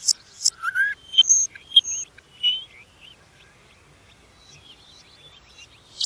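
Common nightingale singing: a string of short, varied whistles and chirps, including a rising whistle, in the first half, then softer, sparser notes.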